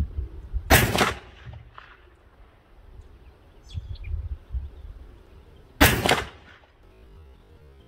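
Two pistol shots from a Polymer80 Glock 19 in 9 mm, about five seconds apart, each a sharp report with a short echoing tail.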